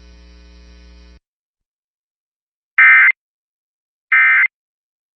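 Emergency Alert System end-of-message code: short digital data bursts, two of them about 1.3 s apart, the first near three seconds in. Before them a low hum under the broadcast audio cuts off about a second in.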